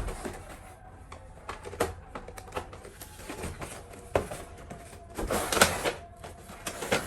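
Hands handling a toy and its packaging: irregular clicks, taps and knocks, with a longer, louder rustling scrape about five seconds in.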